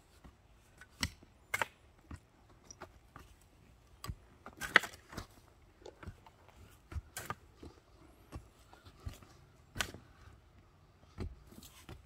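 Long-handled digging tools chopping and scraping in hard, root-filled dirt: irregular thuds and scrapes with a few sharper strikes, the loudest about five seconds in.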